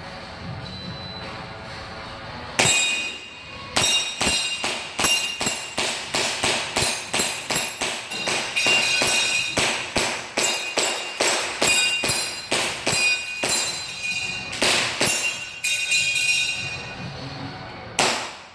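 Airsoft pistol shots fired in a fast string, about two a second, most followed by a ringing metallic ping as steel targets are hit. The string begins about two and a half seconds in, pauses briefly, and ends with one more loud shot near the end.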